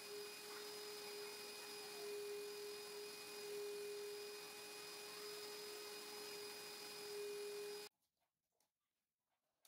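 Canister vacuum cleaner motor running steadily: a low hum with a thin whine over a soft hiss, cutting off suddenly near the end.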